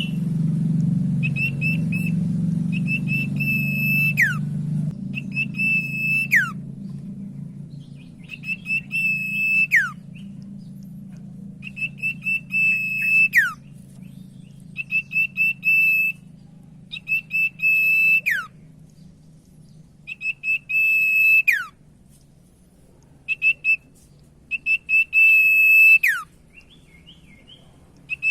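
Common iora (cipoh, also called sirtu) singing its whistled song. Each phrase is a quick run of short high notes that runs into a long held whistle and ends in a sharp downward slide, repeated about nine times with short pauses. A low hum sits underneath, loudest in the first few seconds.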